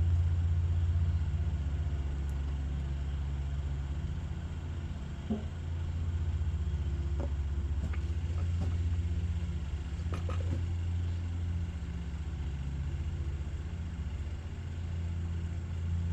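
Steady low mechanical rumble running throughout, with a few faint clicks.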